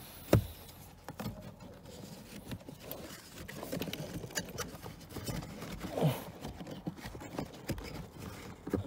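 Pleated cabin air filter being pushed and squeezed into its plastic housing: irregular rustling, scraping and light plastic knocks, with one sharp click just after the start.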